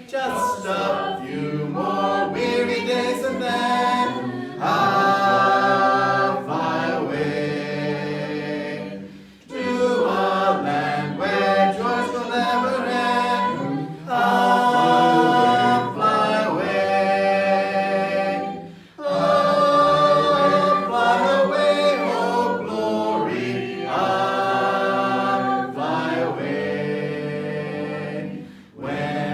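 A small congregation singing a gospel hymn a cappella, voices only and no instruments, in several parts together. The phrases are separated by short breaths.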